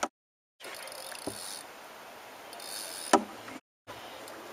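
Fishing reel drag buzzing in two short runs as a hooked smallmouth bass pulls line, over a faint steady hiss, with a single knock just after three seconds. The sound drops to dead silence twice, briefly.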